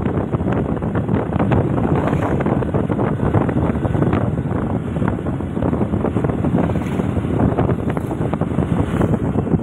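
Loud, steady wind buffeting on the microphone of a camera travelling along a road at speed, with the rumble of the ride underneath.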